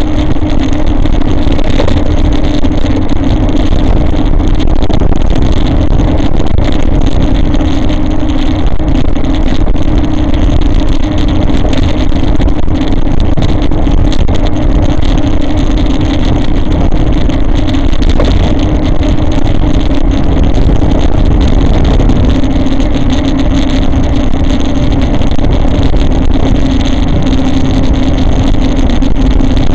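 E-bike riding along a road, heard through a bike-mounted camera: steady tyre and wind rumble with a steady motor hum that dips slightly in pitch later on.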